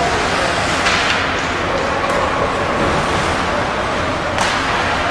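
Ice hockey play in a rink: a steady wash of skates scraping on the ice, with a few sharp clacks of sticks and puck, the clearest about four and a half seconds in.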